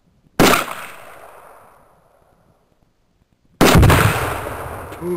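A rifle shot that echoes away for about a second and a half, then about three seconds later a much heavier blast with a deep boom and a long rolling rumble: a binary exploding target (10 oz of In The Red packed in a volleyball) detonating.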